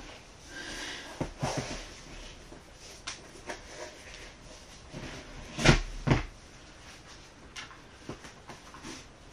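Rustling and light clicks of someone moving and handling things close to the microphone, with two louder knocks about half a second apart in the middle.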